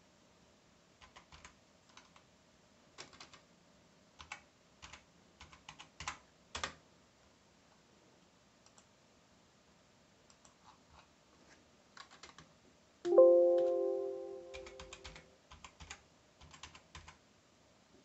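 Computer keyboard keys clicking in short bursts of typing. About two-thirds of the way through, a sudden chime-like tone rings out and fades over about two seconds; it is the loudest sound.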